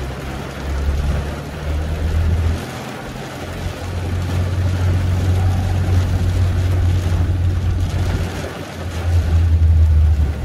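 Tofaş car's engine running, heard from inside the cabin as a deep rumble, with a steady hiss of rain on the car. The rumble dips briefly about three seconds in and swells again near the end.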